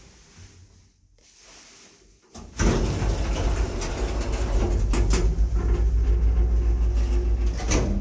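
The sliding door of a 1980s Končar traction lift bangs shut about two and a half seconds in. A steady low rumble from the lift follows, with a few sharp clicks.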